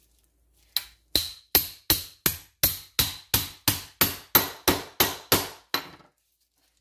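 Metal meat tenderizer mallet hammering about fifteen times in a steady rhythm, roughly three blows a second, each blow sharp with a short metallic ring.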